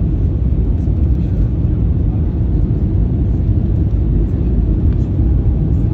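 Airliner cabin noise heard from a window seat during landing: a steady low rumble of engines and airflow as the jet comes down over the runway.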